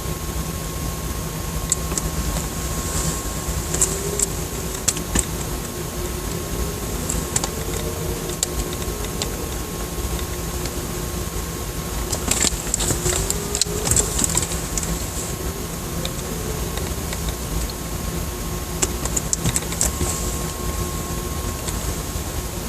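A steady, engine-like drone of unclear origin with a thin steady tone over it. Scattered sharp clicks come through it, bunched about halfway through and again near the end, along with faint short squeaks that rise and fall.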